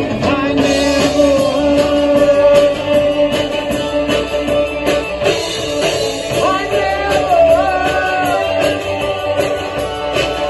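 Live rock band playing: drum kit and electric guitars, with singing.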